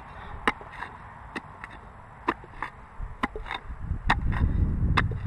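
Spade chopping into hard, dry field soil while digging out a deep metal-detector target: sharp strikes about twice a second. A low rumble comes in near the end.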